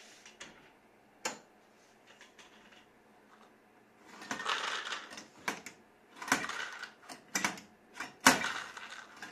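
Nut vending machine's dispensing knob being turned by hand, clicking, and portions of nuts rattling down its metal chute into a paper cup in several bursts starting about four seconds in. A few single clicks come earlier.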